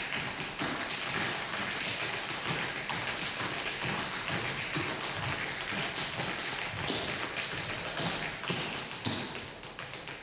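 Dense, rapid tapping and clicking over a steady high hiss, the whole fading out near the end.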